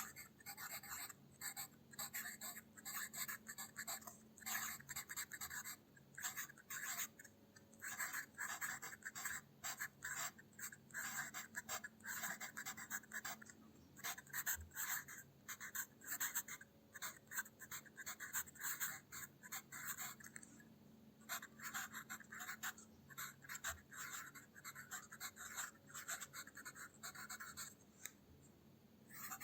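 Pencil writing calligraphy on paper: graphite scratching in quick, irregular strokes, with short pauses every few seconds.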